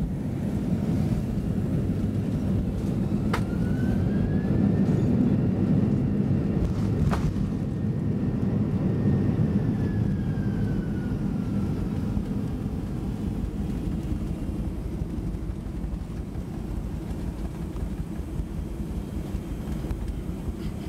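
Boeing 747 rolling out on the runway after touchdown, heard from inside the cabin: a loud, steady rumble with an engine whine that rises, holds for several seconds, then falls away, as the engines spool up for reverse thrust and back down to idle. The rumble eases slowly as the aircraft slows. Two sharp clicks come a few seconds apart.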